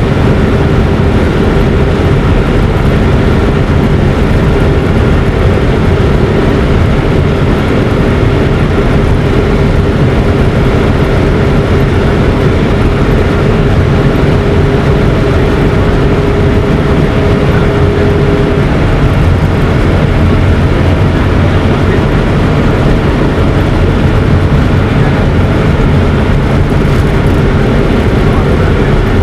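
A vehicle running steadily and loudly, with a steady hum that stops about two-thirds of the way through.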